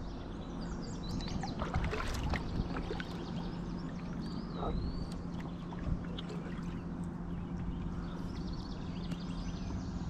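Kayak paddle strokes in calm river water, with splashes and drips off the blade, busiest about two seconds in, and a few light knocks.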